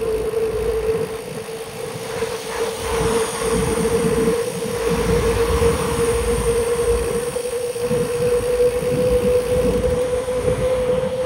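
Bicycle rolling fast on wet asphalt: tyre hiss and wind rumbling on the bike-mounted camera's microphone, over a steady whine that rises slightly in pitch. The hiss swells midway as a car passes on the wet road.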